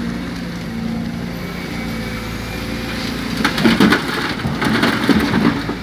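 Excavator's diesel engine running steadily. About three seconds in comes a couple of seconds of crunching and rattling as the bucket moves a load of earth and stones.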